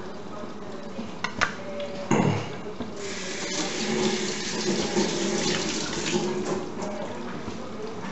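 Water running from a kitchen tap for several seconds, after a few clinks and a knock of kitchenware.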